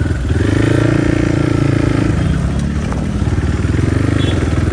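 Crossfire RM250 motorcycle engine running under way. The revs hold for about two seconds, then drop lower and settle.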